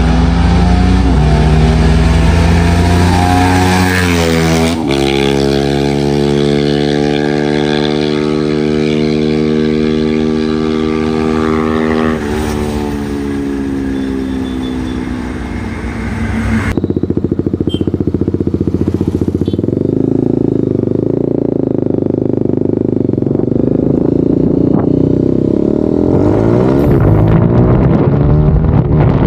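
BMW G310RR's single-cylinder engine running through an aftermarket exhaust with the dB killer removed, pulling up in revs and dropping suddenly about five seconds in, as at a gear change. It holds steady, then eases off around twelve seconds. From about seventeen seconds a rushing noise dominates, with the engine beneath it climbing again near the end.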